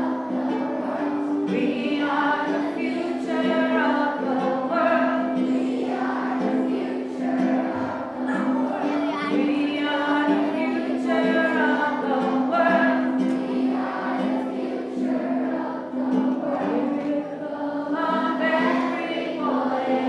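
A crowd of schoolchildren singing a song's chorus together to a ukulele accompaniment.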